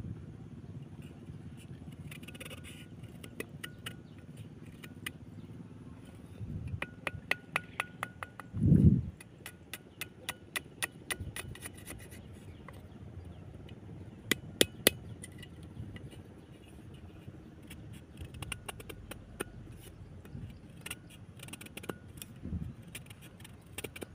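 Broad-bladed knife shaving and scraping a thin strip of fresh bamboo: runs of sharp clicks and scrapes as the blade catches and peels the fibres. A single dull thump about nine seconds in is the loudest sound.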